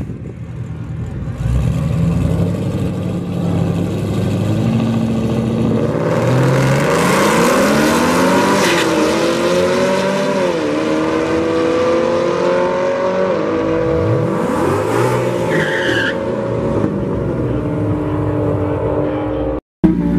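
Two drag cars' engines rumbling at the line, then running at full throttle down the strip: the pitch climbs, drops at each gear change and climbs again, over and over. The sound breaks off suddenly just before the end.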